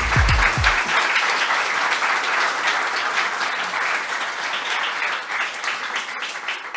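Audience applauding, a dense patter of many hands clapping that thins out and tapers off near the end. The last notes of a music track fade out in the first second.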